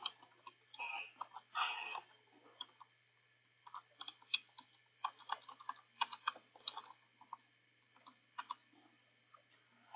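Computer keyboard typing in short, irregular runs of keystrokes, with a faint steady low hum underneath.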